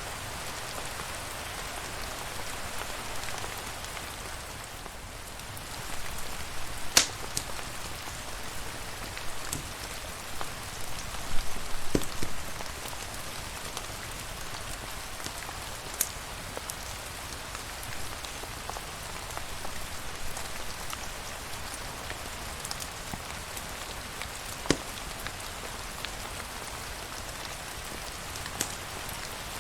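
Steady rain falling and pattering on a surface, with a few scattered sharp clicks, the loudest about a quarter of the way in.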